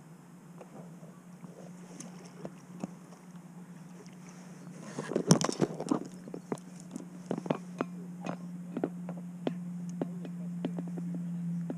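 A hooked brown trout splashes at the surface about five seconds in. After that comes a run of sharp, uneven clicks from the fly reel and line as the fish is played on the rod.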